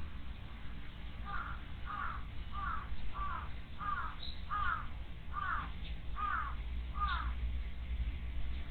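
A bird repeating one short, falling call nine times in quick succession, about two-thirds of a second apart.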